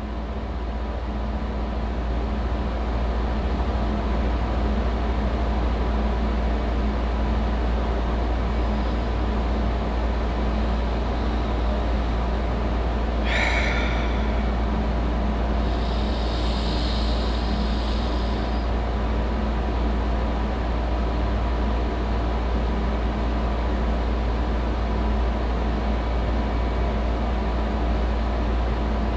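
A steady low rumbling noise with a faint hum. There is a short hiss about 13 seconds in and a softer high hiss a few seconds later.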